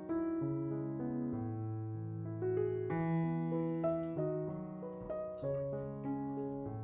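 Gentle solo piano background music, slow notes changing every half-second or so.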